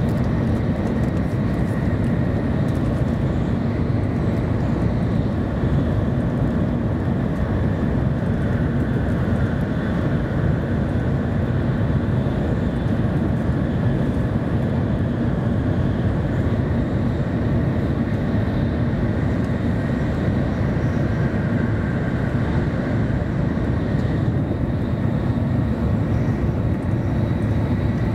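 Cabin running noise of a 700 series Shinkansen travelling at speed: a steady low rumble of wheels on rail and rushing air, with a faint high whine over it.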